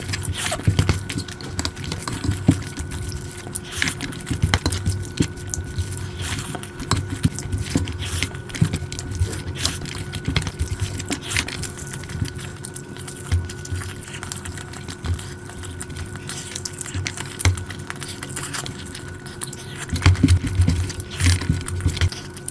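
Close-miked eating of biryani and curry: a steady run of wet chewing, lip smacks and small clicks, busiest near the start and about 20 seconds in, over a faint steady electrical hum.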